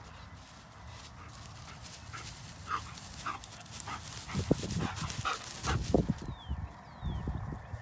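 German Shepherd puppies play-fighting in dry grass: short high yips and low play growls, with the crackle and rustle of paws scrambling through the grass, getting louder from about halfway.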